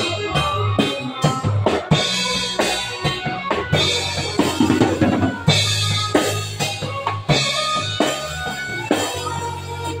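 Acoustic drum kit played with sticks, with snare, bass drum and cymbal hits keeping a steady beat, inside a live band song that has sustained low bass notes under it.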